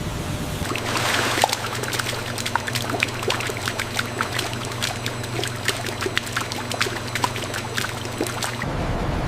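Liquid pouring and splashing, with many small sharp drips and pops over a steady low hum. It starts just under a second in and cuts off suddenly near the end.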